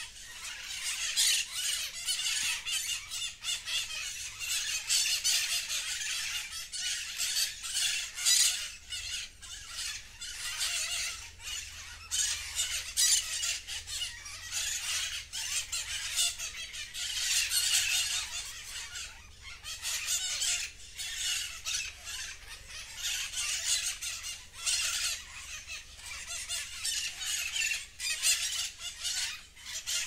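A flock of birds squawking and chattering in the trees, many shrill calls overlapping in a dense, continuous din that swells and fades every few seconds.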